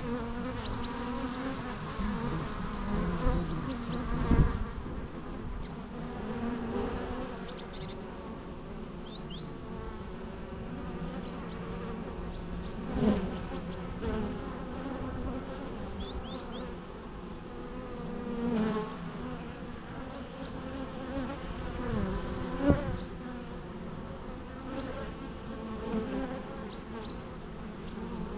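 Many bees buzzing together, a steady mass of overlapping drones shifting in pitch. Every few seconds a single bee's buzz briefly swells louder and fades.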